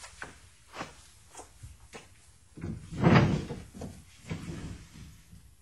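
A few light knocks, then a louder, longer thump with rustling about three seconds in and a softer one after it: a person getting up and moving about in a room.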